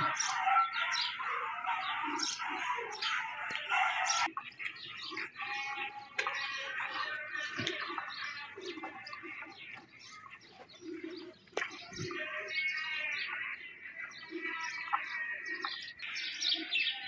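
Many small birds chirping at once, a busy, continuous twittering that thins out briefly about two-thirds of the way through.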